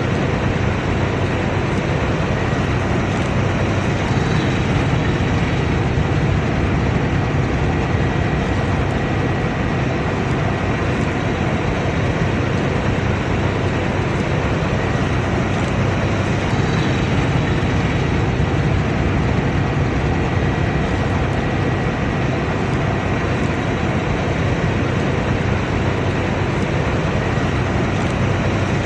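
Combine harvester running steadily under load: a constant, unbroken mechanical drone of engine and machinery with a faint high whine over it.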